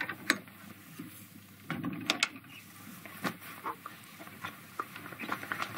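A handful of sharp clicks and knocks at uneven intervals, with a cluster of them about two seconds in.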